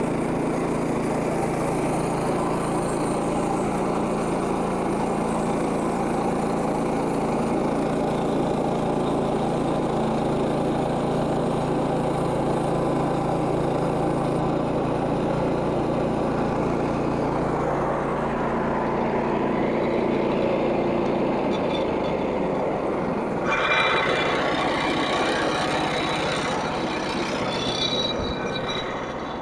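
Frontier OS27 portable bandsaw sawmill running steadily under load, its gas engine driving the band blade through a log as the power feed moves the head along the cut. About three quarters of the way through, the steady engine tone drops away and a brighter, rattling sound comes in.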